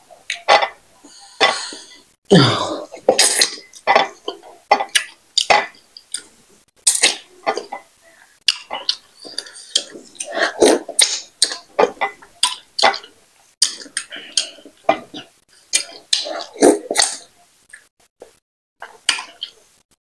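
Close-miked eating sounds of fufu dipped in banga soup and eaten by hand: wet chewing, lip smacking and slurping in quick, irregular bursts.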